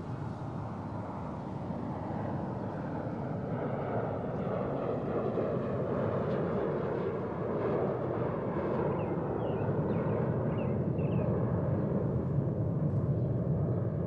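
A steady, low rumbling ambience that slowly grows louder, with a few faint short high chirps about two-thirds of the way through.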